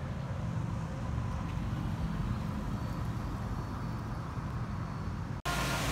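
Outdoor ambience: a steady low rumble of distant traffic. A little over five seconds in it cuts off abruptly to a louder, steady hiss and hum.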